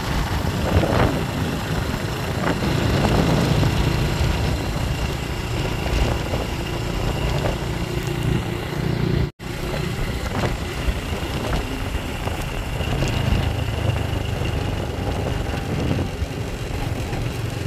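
Motorcycle engine running steadily while riding, with a steady rush of noise over it. The sound drops out for a split second about nine seconds in.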